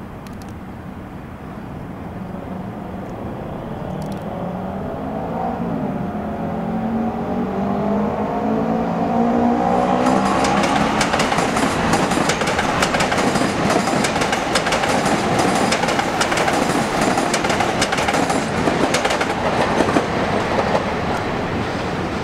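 An approaching electric train: a whine rises in pitch as it gets closer. About ten seconds in it gives way to louder steel-wheel-on-rail noise with rapid clicking over joints and switches.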